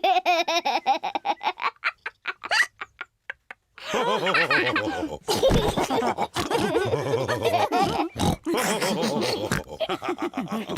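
Cartoon pig characters laughing and snorting. There is a near-silent pause with a few clicks about two seconds in, and the laughing and snorting start again about four seconds in and carry on.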